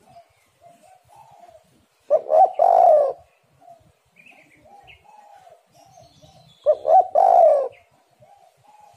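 Spotted doves cooing. Two loud calls about four and a half seconds apart, each a couple of short notes running into a longer coo, with softer repeated coos between them. Faint higher chirps come in around the middle.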